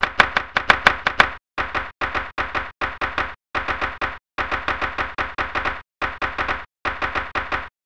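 Typewriter keys striking in quick runs of clicks, about six a second, with short pauses between the runs. The clicks stop just before the end.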